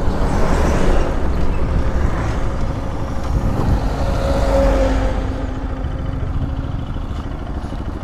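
Bajaj Pulsar RS200 motorcycle riding, with heavy wind rush on the microphone over the engine; the noise eases off in the second half as the bike slows to a stop.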